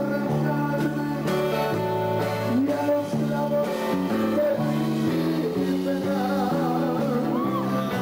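Tejano band music, an instrumental passage with no lead vocal.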